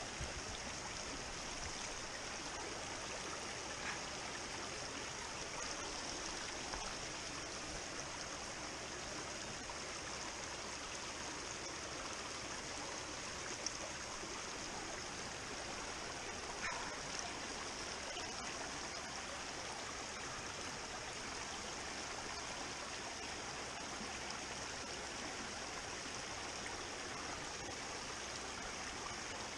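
Shallow rocky mountain stream rushing steadily over stones. A couple of brief knocks stand out partway through.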